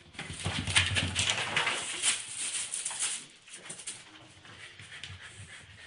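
A corgi making excited dog noises amid scuffling and clicks, loudest over the first three seconds and then quieter.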